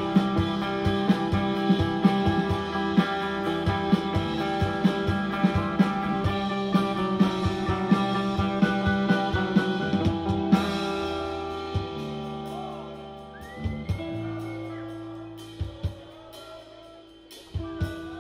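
A live rock band plays the instrumental close of a song: electric guitars sustain chords over a drum kit keeping a steady beat. About ten seconds in the drumming stops and the guitars ring on and fade, with a few last drum hits near the end.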